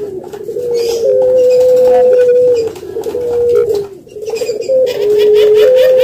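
Spotted dove cooing: a phrase of low coos stepping up and down in pitch, with one long held coo from about a second in, and a new cooing phrase starting near the end.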